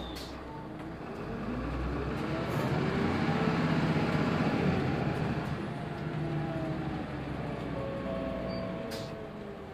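Mitsubishi Fuso QKG-MP38FK city bus's diesel engine pulling away, its pitch rising and getting louder over the first few seconds, then holding steadier and easing off. A sharp click comes near the end.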